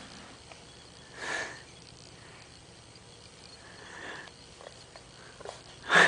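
Short, close sniffs: one about a second in, a softer one around four seconds, and a louder one near the end.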